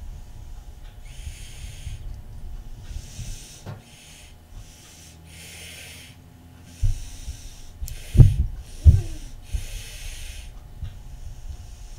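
A person breathing hard in and out, a hissing breath every one to two seconds, while straining to push a hand injector of hot plastisol into a worm mould. Two loud knocks come close together about two-thirds of the way through.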